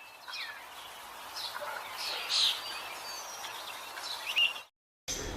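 Many small cage birds chirping and calling together, with two louder, shrill calls about halfway through and near the end. The sound cuts off abruptly shortly before the end.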